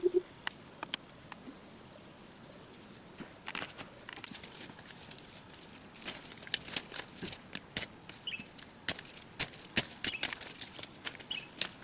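Irregular run of sharp clicks and snaps that grows busier from about three seconds in, with a few short high chirps in the second half.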